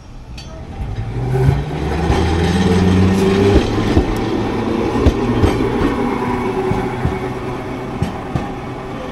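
A Nagasaki Electric Tramway streetcar running by on the track. Its motor hum swells in and rises slightly in pitch over the first few seconds, then the wheels click at irregular intervals over the rail joints as the sound slowly eases.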